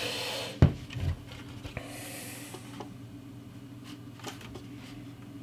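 A graphics card being handled and turned over on a desk: one sharp knock about half a second in and a softer one just after, then a brief rustle and a few faint clicks, over a steady low hum.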